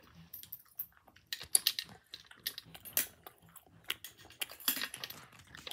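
Scattered small plastic clicks and taps from a toy gumball machine bank being worked with pennies, coming in irregular little clusters.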